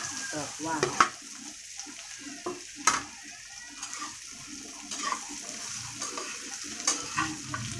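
Fried tofu cubes sizzling in oil in a wok with garlic and onion as they are tipped in and stir-fried, a metal spatula scraping and clinking against the wok; the sharpest clinks come about a second in and just before three seconds.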